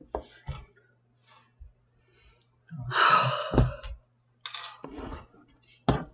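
A person's long sigh or breath out close to the microphone, about three seconds in, with a few short clicks before and after it over a faint low hum.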